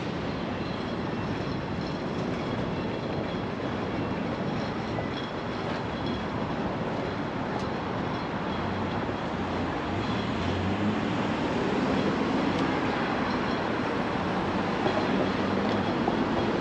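Steady city street noise from traffic on a busy road, swelling a little past the middle as a vehicle rumbles by.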